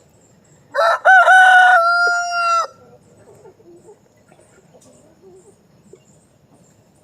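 A rooster crows once. The crow lasts about two seconds, starting about a second in, rough at first and then settling into a steady held note that cuts off sharply.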